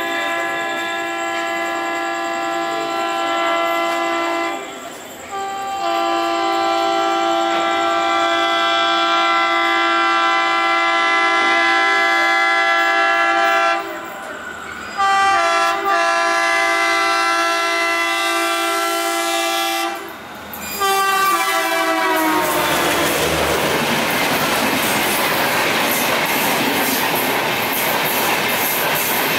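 WDM3A diesel locomotive's horn sounding in several long blasts with short breaks as the train approaches at speed, the last blast falling in pitch as the locomotive goes by. The coaches then rush past, with steady wheel-on-rail noise, as the train runs through the station without stopping.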